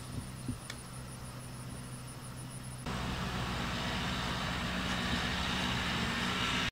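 Outdoor ambience: a steady low hum with a faint, fast, high-pitched pulsing over it. About three seconds in it cuts abruptly to a louder steady hiss with the hum still under it.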